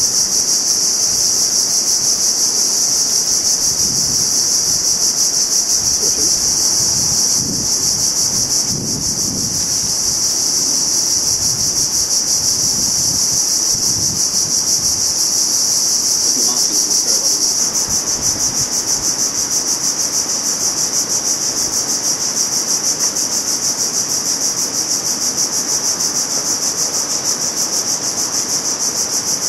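Loud, steady, high-pitched chorus of tropical insects trilling with a fast, even pulse, with a slight dip about a third of the way in.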